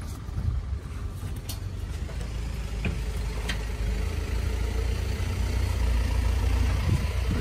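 A steady low rumble that grows slowly louder, with a few light clicks from the awning's aluminium arms being handled.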